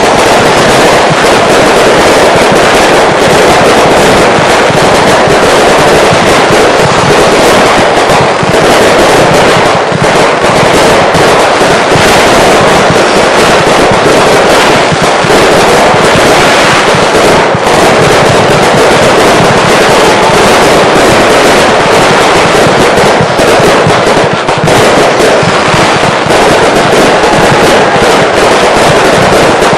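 Consumer fireworks finale: a dense, continuous barrage of bangs and crackle, very loud throughout.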